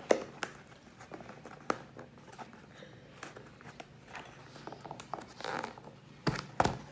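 Clear plastic clamshell takeaway container being handled and its lid unsnapped: thin plastic crackling, with a few sharp clicks scattered through and the loudest pair close together near the end.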